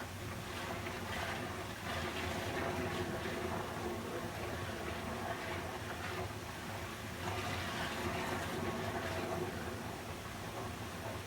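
Steady rush of flowing water played as sleep white noise, swelling gently every few seconds, with a faint steady hum underneath.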